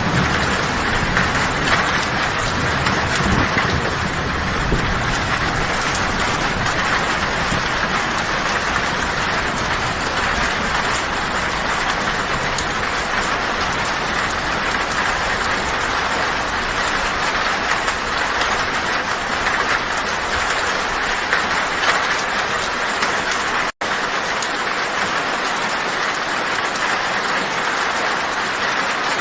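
Heavy rain drumming steadily on a tin roof, with a low rumble underneath that dies away after about twenty seconds. The sound cuts out for an instant about 24 seconds in.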